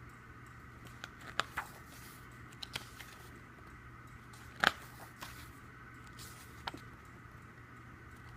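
Light clicks and rustles of paper and plastic album contents being handled, with one louder sharp tap about halfway in, over a faint steady hum.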